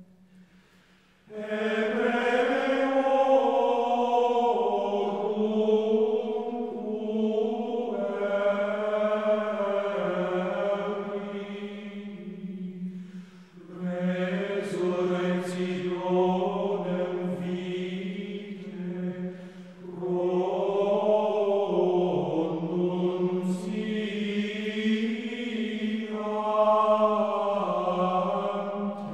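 Sung chant over a steady held drone, in long slow phrases. It comes in about a second in, after a brief near-silence, and breaks briefly about halfway through and again about two-thirds through.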